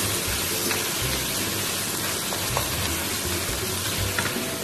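Chopped onion and meat sizzling steadily in hot oil in a frying pan, with a few light clicks of a wooden spatula stirring against the pan.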